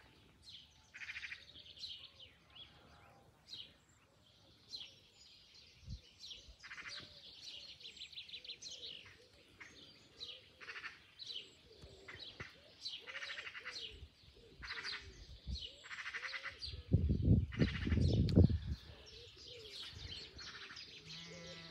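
Small birds singing outdoors, with many short chirps and quick trills. A sheep bleats loudly for a second or so near the end.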